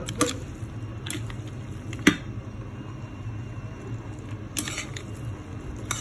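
Spaghetti with mussels, calamari and shrimp being stirred and tossed in a pan of tomato sauce: wet squishing with a few sharp clicks of the utensil against the pan, the loudest about two seconds in, over a steady low hum.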